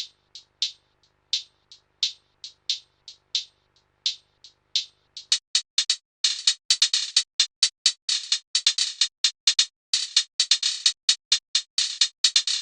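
Trap-style drum-machine hi-hat loop playing on its own: short, bright closed hi-hat ticks, sparse at first, then from about five seconds in a busy pattern with fast rolls.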